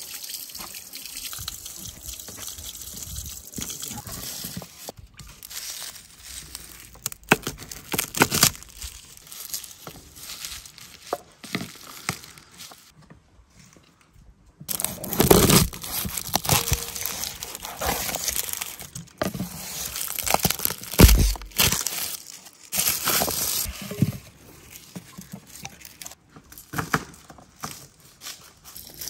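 Bunches of fresh parsley and dill rustling and crinkling as they are handled. About halfway through, a knife cuts vegetables on a board, with irregular crunches and knocks.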